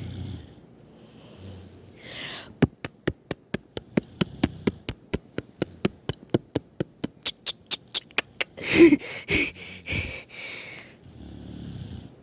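A girl snoring in her sleep, with a snore near the start and another near the end. Between them comes a run of sharp, evenly spaced clicks, about five a second for some six seconds, then a louder burst about nine seconds in.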